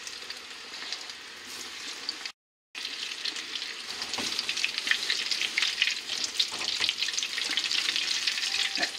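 Breaded artichoke hearts deep-frying in a small saucepan of hot seed oil, sizzling steadily. The sound cuts out briefly about two and a half seconds in, then comes back louder and busier, with a few light clicks.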